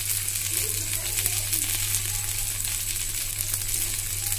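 Chicken and vegetable kebab skewers sizzling in oil on a hot iron tawa, a steady crackling hiss.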